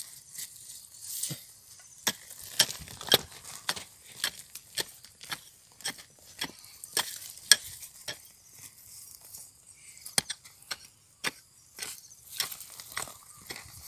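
Small hand digging tool scraping and striking dark gravelly soil: irregular sharp scrapes and knocks, a few a second, with the loudest strike about seven and a half seconds in.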